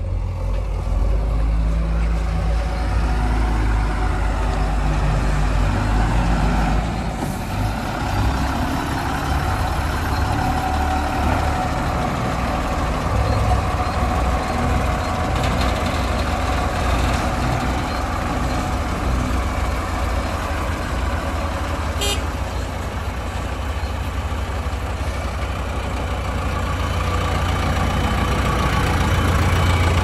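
Diesel engine of a JCB 3DX backhoe loader running steadily under working load while digging and loading mud, its note shifting about seven seconds in; a single short sharp click comes about 22 seconds in.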